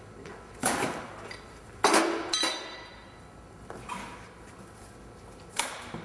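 Trash being handled and tossed out of a recycling bin: five separate clinks and clatters of hard items, spaced irregularly, one ringing briefly after it hits.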